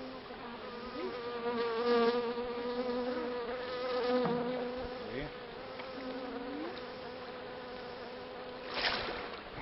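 A flying insect buzzing close by, a steady hum whose pitch wavers up and down now and then. A short rush of noise comes near the end.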